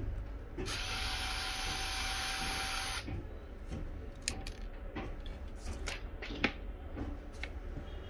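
Handheld cordless electric screwdriver motor running steadily for about two seconds while backing out laptop screws, then stopping abruptly. A few sharp clicks and taps follow.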